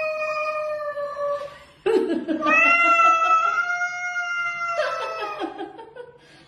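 A cat yowling in a face-off with another cat. One long, drawn-out yowl ends about a second and a half in. A second long yowl starts sharply about two seconds in, holds steady and fades out before the end.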